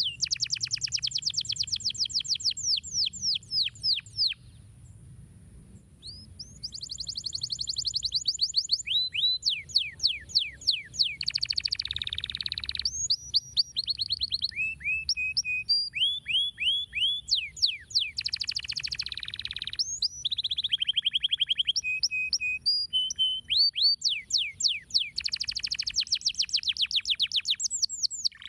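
Domestic canary singing: long rolls of rapid repeated chirps and trills, broken by short pauses, the longest about two seconds.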